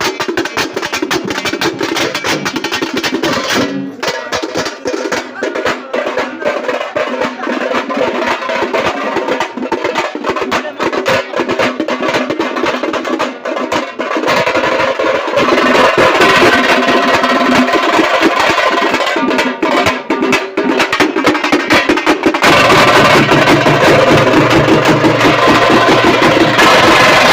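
Tamate frame drums beaten with sticks in fast, dense strokes, getting louder about halfway through and louder again near the end.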